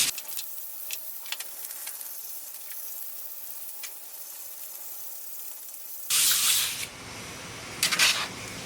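Aerosol can of WD-40 spraying onto the cast iron saw top: a burst of hiss about six seconds in, then two short bursts near the end. Before that there is only faint rustling with a few light clicks.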